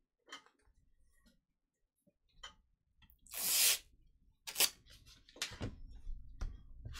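Sticky lint roller: a loud rip about three seconds in as a used sheet is peeled off, a shorter rip a second later, then a low rubbing rumble as the roller starts across the mat.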